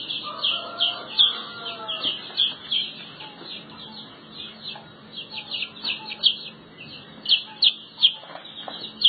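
Chicks peeping: short, high-pitched, downward-sliding peeps several times a second, with a longer, lower call in the first two seconds.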